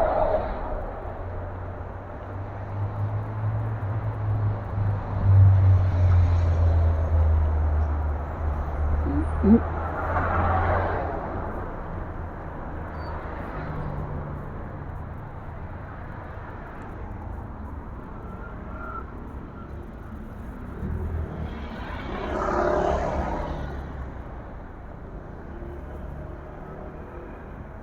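Street traffic: a low engine rumble over the first several seconds, and vehicles passing by about ten seconds in and again about twenty-two seconds in.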